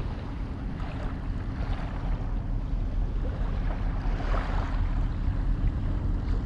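Wind rumbling steadily on the microphone, with a faint wash of sea behind it.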